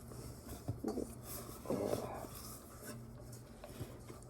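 Hands rubbing and kneading soft cloud dough made of cornstarch and lotion, with two brief louder sounds about one and two seconds in.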